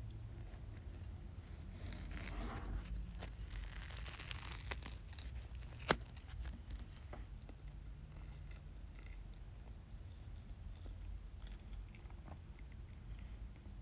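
Dry crackling and crunching from about two to five seconds in, then a single sharp click near six seconds and a few faint ticks, over a low steady hum.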